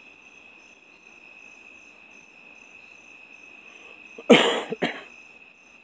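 Crickets chirping steadily, with a person coughing twice in quick succession about four seconds in, the first cough the louder.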